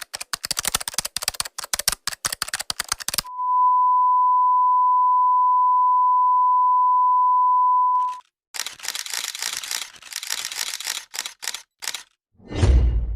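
A string of stock sound effects. First comes about three seconds of rapid clicking, then a steady, loud, single-pitch beep held for about five seconds, like a censor bleep. Then comes a few seconds of irregular clicking and crackle, and near the end a loud low boom that falls in pitch.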